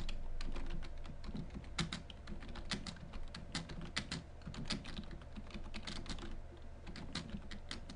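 Typing on a computer keyboard: irregular key clicks, several a second, as a sentence is typed out, over a faint steady hum.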